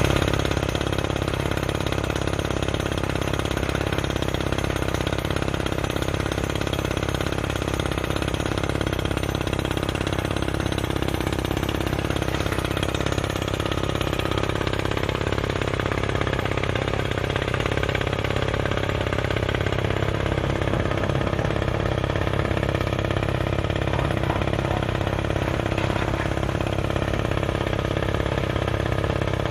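Kaishan drilling rig running, a steady, unbroken engine noise at an even level.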